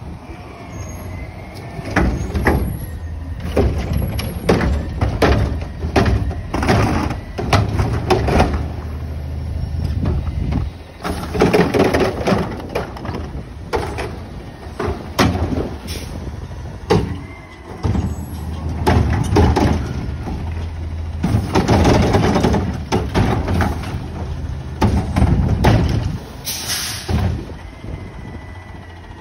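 Front-loading garbage truck running and revving as it moves along the street, with repeated clanks and bangs from its front container and arms, and a short air hiss near the end.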